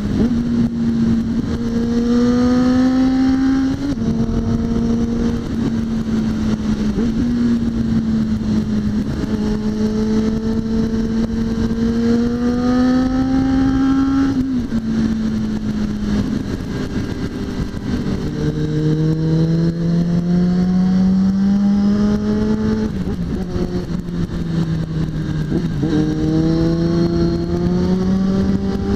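Suzuki GSX650F's inline-four engine running at riding speed, its pitch rising slowly under throttle and dropping sharply a few times at gear changes or throttle lifts, over steady wind and road rush.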